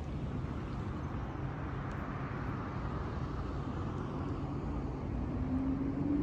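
City street ambience: a steady low rumble of traffic, swelling slightly about two seconds in.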